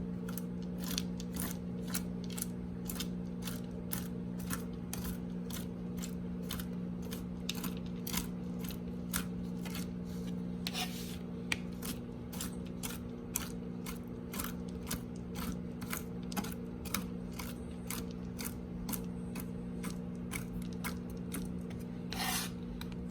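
Knife chopping pistachios on a cutting board, a steady run of short chops at about two a second. Under it, the steady hum of a microwave oven running.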